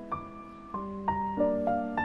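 Background music: a slow piano melody of held notes, one new note every half second or so.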